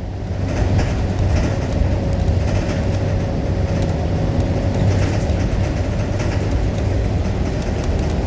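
Wind buffeting the microphone: a loud, steady low rumble. A faint steady hum sounds for a few seconds in the middle.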